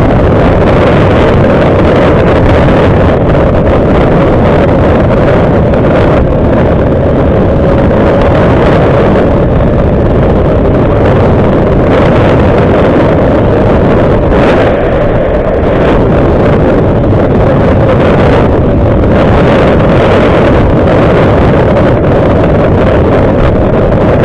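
Motorcycle riding at steady cruising speed: loud wind rushing over the microphone mixed with the steady running of the bike's engine.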